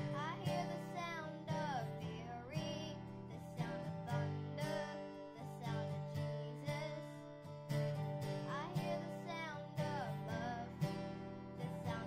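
Acoustic guitar strummed in a steady, even rhythm, with a boy singing over it in phrases.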